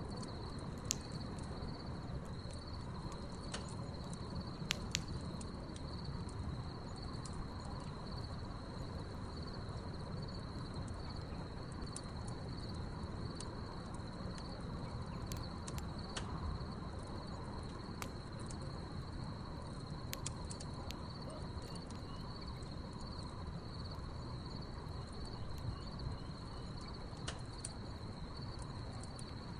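Crickets trilling steadily over a crackling wood fire, with scattered sharp pops from the burning logs, the loudest about a second in and again around five seconds.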